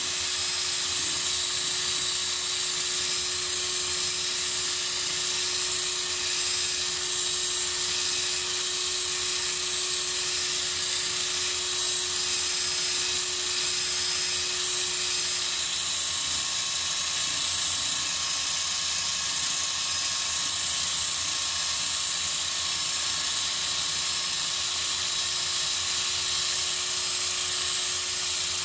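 Hitachi cordless drill spinning a wool buffing pad with rubbing compound against a guitar pickguard: a steady motor whine with a constant hiss.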